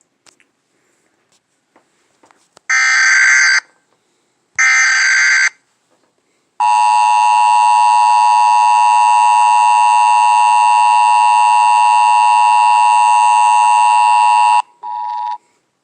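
Emergency Alert System tones: two harsh buzzing data bursts of about a second each (the SAME header), then the steady two-tone attention signal held for about eight seconds, followed by a short, fainter burst near the end.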